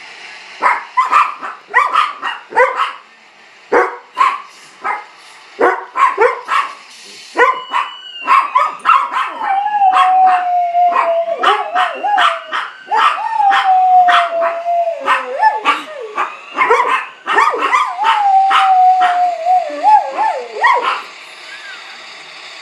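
A dog barks in short, sharp yelps, then breaks into long, falling howls mixed with more barks. The howling is its reaction to a fire truck siren. The dog stops about a second before the end.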